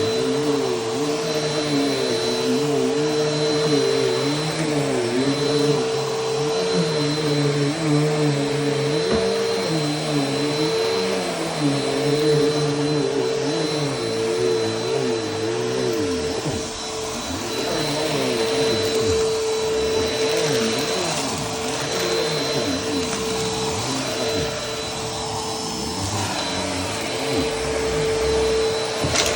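Vacuum cleaner running steadily, its motor holding a constant whine. Lower tones waver up and down every second or so, most plainly in the first half.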